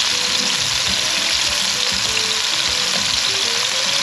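Chicken pieces frying in hot oil in a frying pan, a steady sizzle, while metal tongs turn the pieces.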